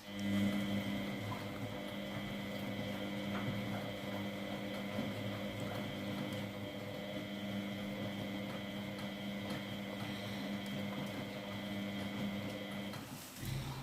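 Miele W833 front-loading washing machine spinning. A steady motor hum with a constant high whine, which drops away shortly before the end.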